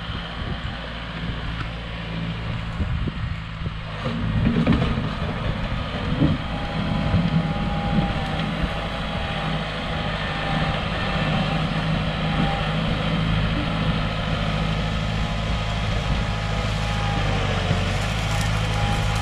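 Kubota M6060 tractor's diesel engine running steadily under load as it pushes soil with its front loader bucket, with a faint steady whine above the engine note. It gets louder about four seconds in as the tractor closes in, with a few knocks between about four and seven seconds in.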